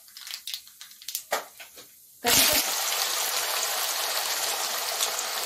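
Cumin and mustard seeds crackling faintly in hot oil in a wok, then about two seconds in, diced raw potatoes and curry leaves go into the oil and it breaks into a loud, steady sizzle.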